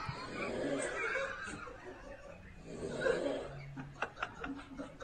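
People laughing and snickering, coming in breathy swells rather than words.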